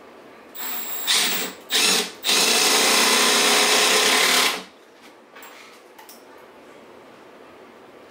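Milwaukee cordless drill run in a few short bursts, then held steady for about two seconds, recessing a screw hole in a wooden 2x6 box.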